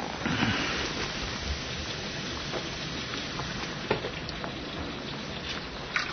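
Cream pouring from a measuring cup into a hot saucepan of butter, garlic and ginger, with a steady sizzle as it hits the pan and a few light clicks.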